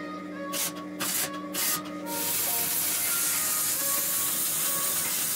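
Electric arc welding on steel: three short crackling hiss bursts of tack welds, then from about two seconds in a continuous weld bead with a steady sizzling hiss. Background music plays faintly underneath.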